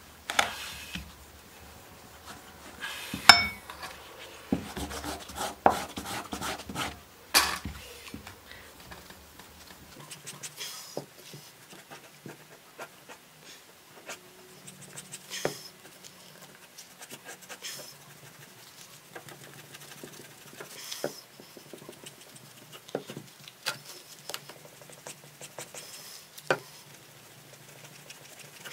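Steel knife blade stropped by hand on a leather strop charged with polishing compound: irregular rubbing strokes with sharp clicks as the blade touches down, the loudest about three seconds in. This is the final polishing stage after 5000-grit sanding, bringing the blade toward a mirror finish.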